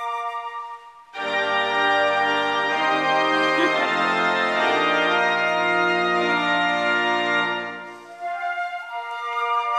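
Pipe organ playing loud sustained chords with deep bass notes, moving to a new chord twice before fading out. A flute ensemble's sustained notes fade out just before the organ enters and come back in near the end.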